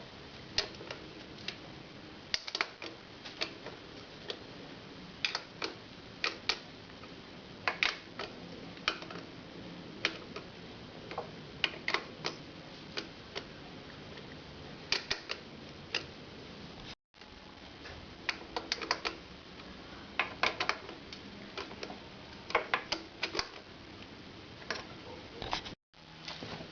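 Irregular light clicks and taps of metal tools and engine parts being handled, some single and some in quick clusters, over a steady faint hiss.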